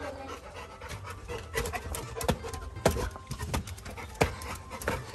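Labrador retriever puppy panting, with irregular sharp clicks and taps scattered through.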